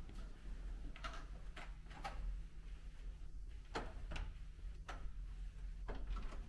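A handful of short, sharp clicks or knocks at irregular intervals, about seven of them, over a steady low rumble.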